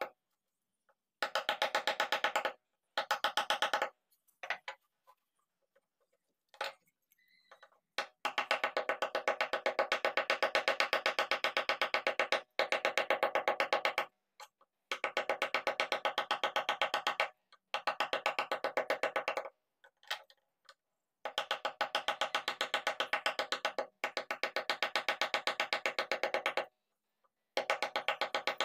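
Wooden mallet knocking on a wood-carving chisel as it cuts into a carved wooden panel, evenly spaced blows in runs of a few seconds that stop abruptly between runs.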